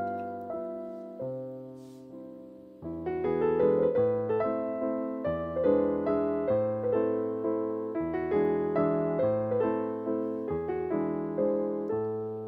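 Soft background piano music, notes struck one after another in a flowing, even pattern, growing louder about three seconds in.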